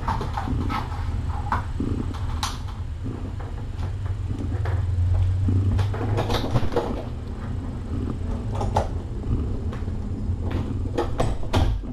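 Mother cat purring, a low steady rumble, while her kittens nurse, with many short soft clicks and rustles from the suckling, shifting kittens.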